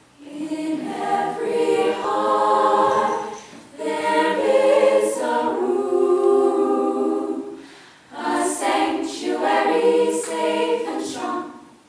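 Women's a cappella group singing in harmony without instruments, in three phrases separated by brief pauses for breath.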